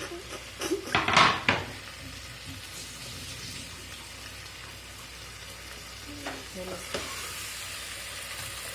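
Chopped okra and tomato frying in spiced oil, sizzling steadily while being stirred, with a loud scrape and clatter of the spoon against the pan about a second in.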